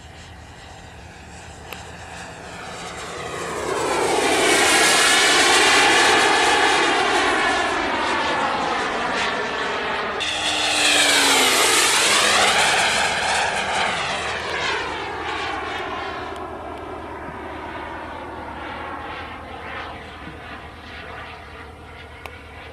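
Radio-controlled Roocky model plane making two fast passes: its motor swells loud about four seconds in and again around eleven seconds, the pitch dropping as it goes by, then fades as it flies off.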